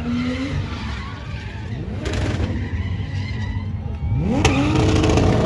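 Car engine revving hard and tyres skidding as the car drifts on the track, the engine's pitch climbing again about four seconds in.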